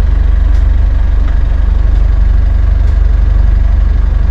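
A sailing yacht's engine running steadily, a loud, even low hum with a fast, regular pulse, as the boat motors in toward a marina.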